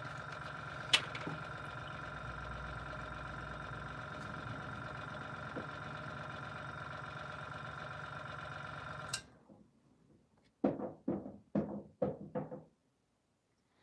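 An airbrush compressor's motor runs with a steady hum and cuts off with a click about nine seconds in. This is followed by a few short scraping taps as paint is stirred in a small plastic cup.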